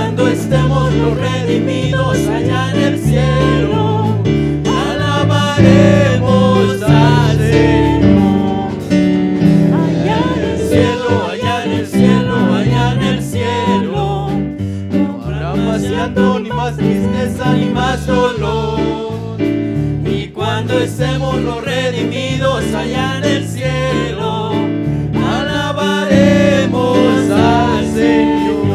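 Gospel worship music: a band with bass and guitar playing a steady beat, with voices singing.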